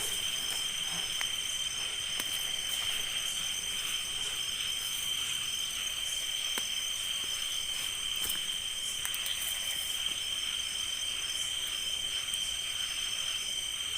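Steady chorus of crickets: several continuous high-pitched trills at different pitches, with a few faint clicks.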